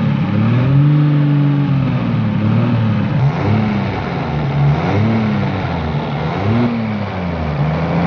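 Turbocharged 1JZ inline-six engine revved repeatedly in short blips, its pitch rising and falling about five or six times, recorded close to the turbo. The engine has an exhaust leak that the owner believes is at the turbo-to-downpipe gasket, and SeaFoam in the intake is making it smoke.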